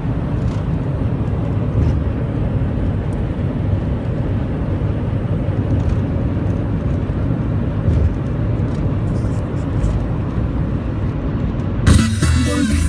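Steady road and engine rumble heard from inside the cabin of a car moving at highway speed. Music comes in near the end.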